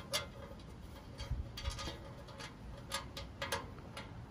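Light metal clicks and ticks as wing nuts are hand-tightened onto screws and washers on a stainless steel heater reflector, a few scattered clicks rather than a steady rhythm.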